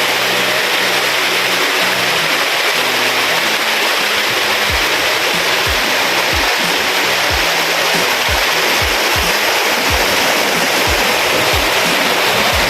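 Steady rushing of a waterfall, with background music under it carrying repeated deep, falling bass notes.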